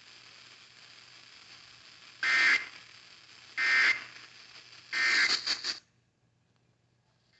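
Three short bursts of NOAA Weather Radio SAME digital data, a raspy two-tone chirp, over radio hiss: the end-of-message code that closes the tornado warning broadcast. The received signal then cuts out to near silence.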